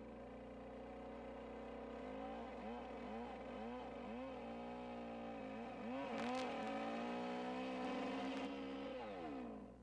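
Two-stroke chainsaw running and cutting into a squared log, its engine speed rising and falling as the chain bites, with a few sharp clicks about six seconds in. It stops abruptly near the end.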